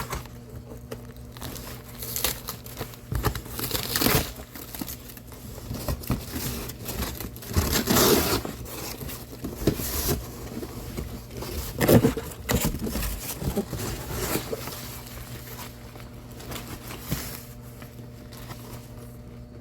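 Cardboard box and packaging being broken down by hand: irregular tearing, crinkling and scraping, loudest about eight and twelve seconds in.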